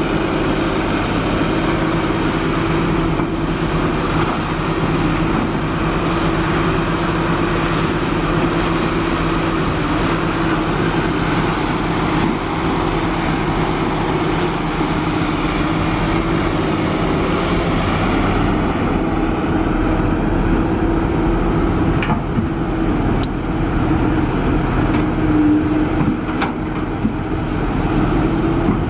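Diesel engine of a Kobelco SK350 hydraulic excavator running steadily under working load. A few sharp knocks come in the last third.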